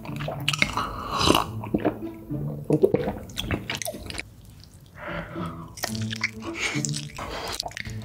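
Close-miked mukbang eating sounds: gulping milk from a glass, then wet chewing and mouth clicks, with a bite into a cheese-filled macaron near the end.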